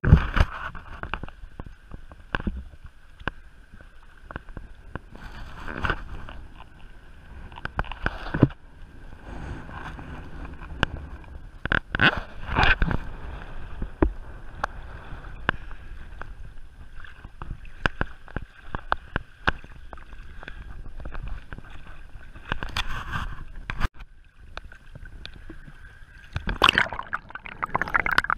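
Seawater sloshing and splashing around a camera held at the surface by a snorkeler, with irregular sharp splashes and knocks. The splashing is heaviest about twelve seconds in and again near the end, as the camera dips under.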